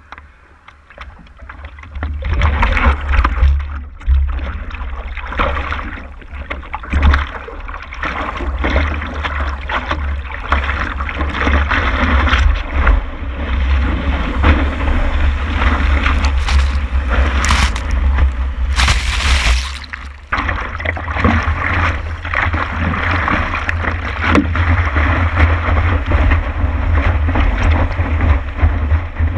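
Wind buffeting the microphone and water rushing past a stand-up paddleboard riding breaking waves, a steady loud rush with a deep rumble. It is quieter for the first two seconds, then grows loud, and dips briefly about twenty seconds in.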